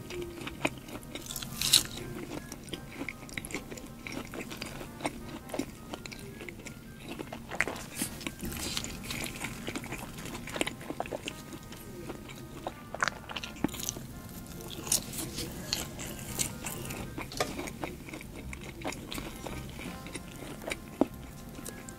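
Close-miked biting and chewing of breaded chicken nuggets, with sharp crunches every second or two, over soft background music.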